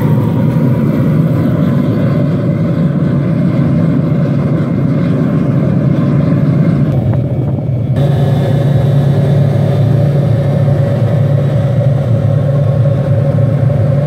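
Fan-assisted gas burner of a Lampo 11 gas furnace firing: a loud, steady rush of flame and blower air over a low hum.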